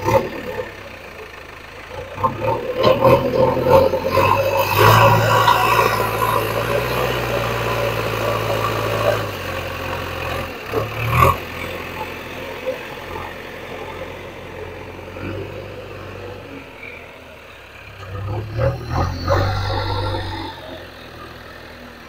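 JCB 3DX backhoe loader's diesel engine revving up under load as the front loader bucket pushes soil, then easing back toward idle, with a sharp knock about eleven seconds in. It revs up again near the end.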